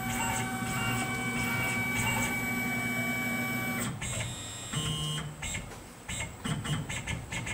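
Tormach PCNC mill's axis drive motors whining steadily as the head with its probe moves down toward the vise, stopping abruptly about four seconds in. A second short whine of a brief jog follows about a second later, then a few softer irregular mechanical sounds.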